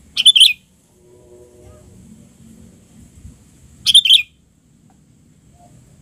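Sooty-headed bulbul giving two short bursts of quick, bright chirps: one just after the start and another about four seconds in.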